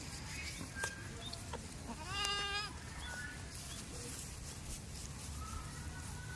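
A goat bleats once, about two seconds in, a short pitched call lasting under a second.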